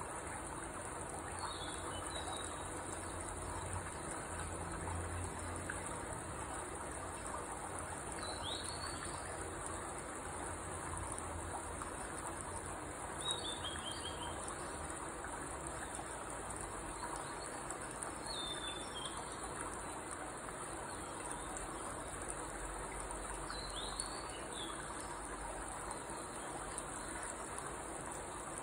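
Insects trilling in a steady, high, unbroken chorus, like crickets, with a bird giving short falling chirp series every few seconds over a steady hiss.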